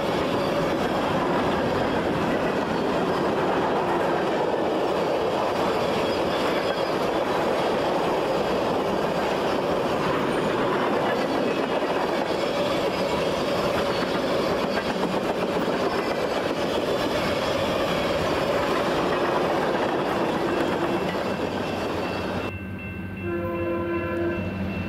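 VIA Rail LRC passenger coaches rolling steadily past at a level crossing, with a continuous rumble and wheel clatter on the rails. About two seconds before the end the sound changes abruptly to a quieter, steady hum.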